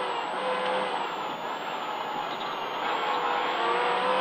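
Ford Fiesta ST rally car heard from inside the cabin at speed on a snowy stage: the engine and drivetrain run under load over steady road noise. The engine note eases slightly mid-way and climbs again near the end.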